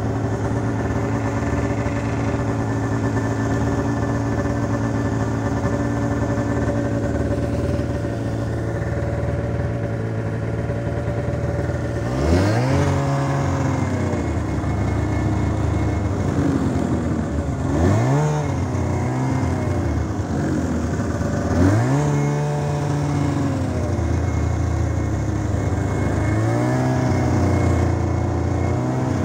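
Snowmobile engine heard from on board, running at a steady pitch as it travels, then revved up four times in quick rises of pitch, each easing back.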